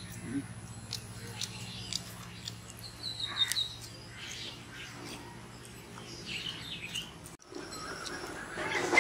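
Birds chirping now and then against a low steady hum, with a short falling chirp about three seconds in. The background cuts out abruptly for a moment near the end.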